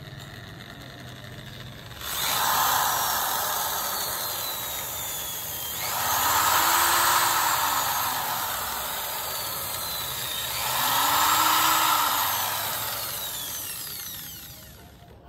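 Corded electric drill running into a bamboo frame, starting about two seconds in and swelling in loudness three times as the bit bites and the speed dips and recovers.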